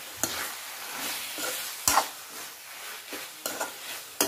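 A metal spatula stirs and scrapes onion-tomato masala frying in a metal kadhai over a steady sizzle, as the tomatoes and spices are fried down to soften. The spatula knocks sharply against the pan about two seconds in and again near the end.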